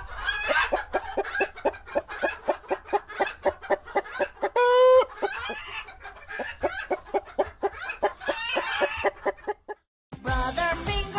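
Chicken clucking in a quick run of short clucks, about three or four a second, with one longer drawn-out call about halfway through. Children's song music comes back in near the end.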